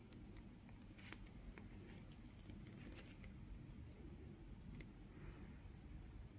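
Near silence: faint room tone with a few soft ticks from a fold-out paper instruction leaflet being handled.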